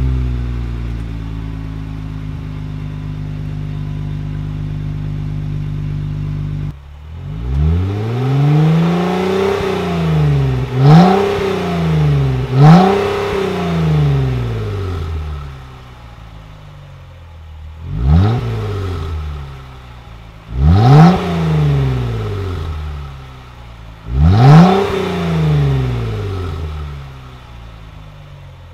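Jeep Wrangler JKU V6 breathing through a Dynomax Evolution aftermarket exhaust, just fired on a warm start and flaring down into a steady idle. After about seven seconds the engine is blipped repeatedly, revving up and falling back to idle about six times, with the last three revs short and sharp.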